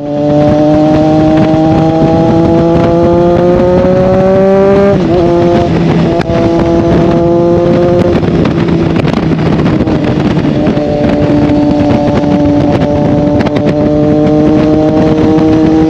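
Motorcycle engine pulling under way, its pitch climbing slowly for about five seconds. A gear change about five seconds in drops the pitch, and the engine then runs at a steady cruise.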